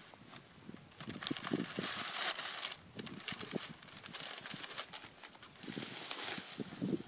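Dry grass rustling and crackling as it is trampled and grabbed, with soft footstep thuds. The rustling swells about a second in and again near six seconds.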